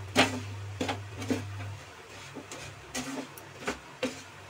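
A spoon stirring a thick, crumbly mixture in a nonstick kadai, with irregular scrapes and taps against the pan. A low steady hum stops about two seconds in.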